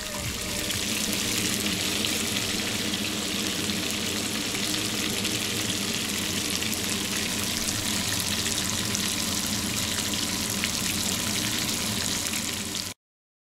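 Breaded fish sizzling in hot oil in a frying pan, a steady crackle that cuts off abruptly near the end.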